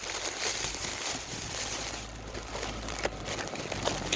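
Steady wind noise buffeting the microphone in a snowstorm, with rustling, crinkling and a few light clicks.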